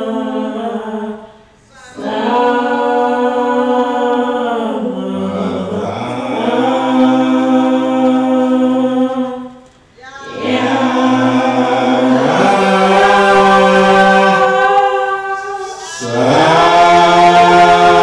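Choir singing unaccompanied, several voices at different pitches holding long notes in slow phrases, with short breaths about a second and a half in, around the middle, and near the end.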